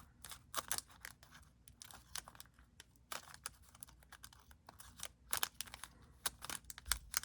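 Trading-card pack wrapper being torn open and crinkled by hand: a scatter of faint crackles and ticks.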